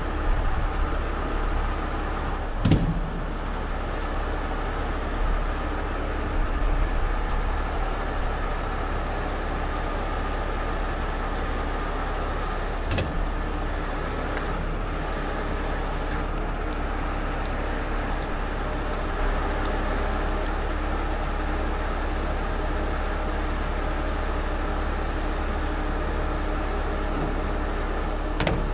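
Heavy rotator tow truck's diesel engine running steadily to power its boom and winches, a constant drone with a deep rumble. A couple of sharp metallic clanks cut through it, one a few seconds in and one about halfway.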